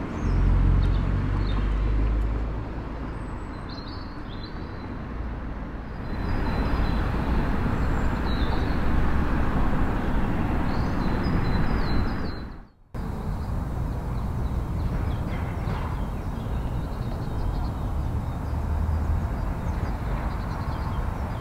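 Outdoor ambience: a steady low rumble, heaviest in the first couple of seconds, with short high bird chirps now and then. The sound drops out for an instant about thirteen seconds in.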